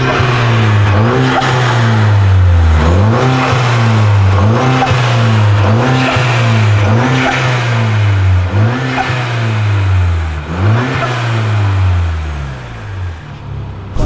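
A Peugeot 308 THP's turbocharged 1.6-litre four-cylinder engine being revved repeatedly in quick blips. Each time the pitch climbs fast and sinks back, roughly once a second, and it eases lower and quieter near the end.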